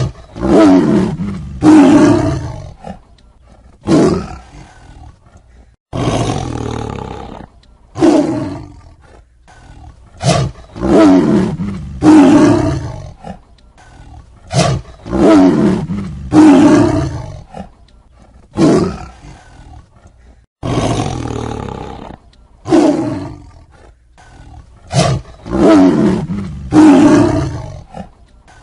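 Tiger roaring and snarling: a series of loud, rough roars, each starting sharply and fading over a second or two, about one every two seconds.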